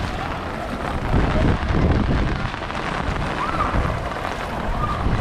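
Floodwater sloshing and splashing as someone wades through it on foot, a continuous noisy wash with heavier low surges between about one and two and a half seconds in.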